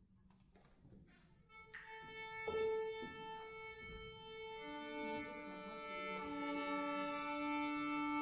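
Violin being tuned to the piano. A single piano note is struck about two and a half seconds in, then the violin bows long, steady notes on its open strings, sounding two strings together near the end.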